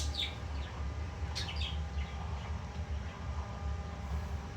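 Young cockatiel giving a few short chirps, one just after the start and a quick cluster about a second and a half in, over a steady low hum.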